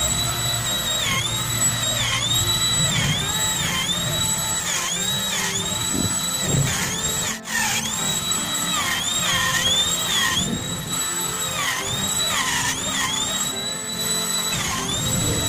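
Handheld electric wood router running at high speed while cutting grooves into a wooden door panel. Its high whine dips in pitch again and again as the bit takes the load of the cut, then recovers.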